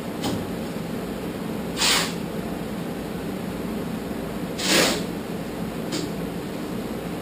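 Four short hisses of compressed air from an air-hose nozzle, used inside a bare VW Beetle body shell. The second and third hisses are the loudest and the third is the longest, over a steady low hum.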